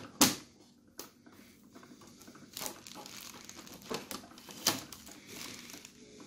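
Blue shipping tape being peeled off the plastic casing of a new Epson L3156 printer, in several short pulls, the loudest right at the start.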